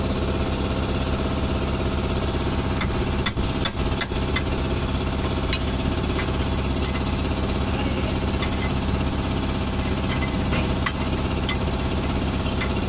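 A steady engine-like mechanical drone, with scattered light metallic clicks and taps as a brake caliper and pads are handled; a few sharper knocks come about three to four seconds in.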